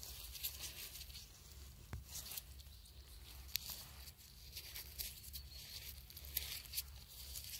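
Faint rustling and crackling of wet moss, pine needles and leaves handled by gloved hands while picking funnel chanterelles, with a few sharp clicks.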